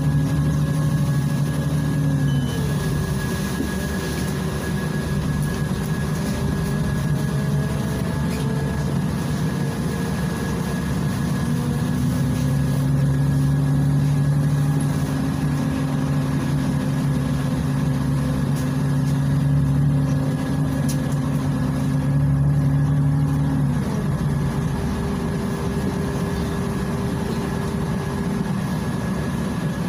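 Volgabus 5270G2 city bus heard from inside the passenger cabin while driving. Its Yuchai six-cylinder natural-gas engine and Voith DIWA automatic drivetrain make a steady low drone that drops out about two seconds in, returns midway and drops out again near the end. Slow rises in pitch come as the bus gathers speed, over road noise and a thin steady whine.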